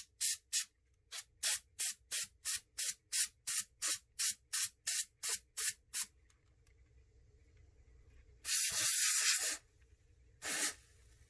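Can of compressed air spraying in quick short puffs, about three a second for some six seconds, blowing dust out of a laptop's insides; then one longer spray of about a second and a last short puff near the end. The can is chilling from the use.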